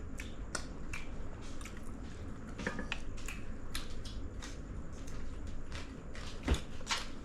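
A person chewing and biting food, a run of short wet smacks and crunchy clicks at irregular intervals.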